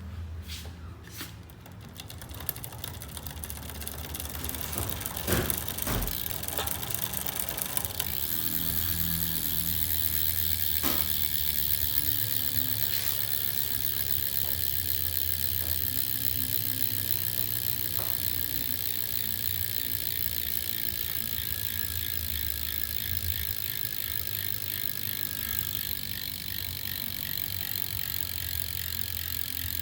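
DT Swiss 240 star-ratchet rear hub freewheeling on a road bike: a few separate clicks, then a fast, even ratchet buzz as the rear wheel spins and coasts, slowly fading as the wheel slows.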